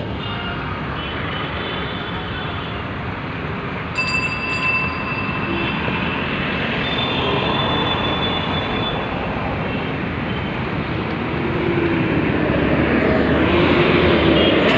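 Dense, steady traffic noise heard while riding along a busy city street, growing louder toward the end. A brief, sharp, high ring sounds about four seconds in, and a few short horn-like tones come later.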